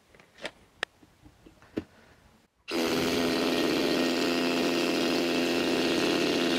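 A few light clicks and taps of handling, then about two and a half seconds in a Hilti Nuron TE 4-22 cordless SDS rotary hammer starts abruptly. It runs steadily at full load, hammer-drilling into a concrete block.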